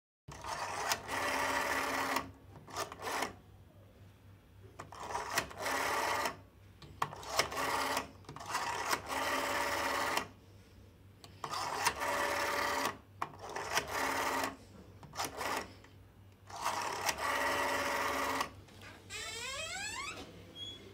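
A small motorised machine running in repeated short stints of one to two seconds, with pauses between. Near the end comes a quick rising sweep.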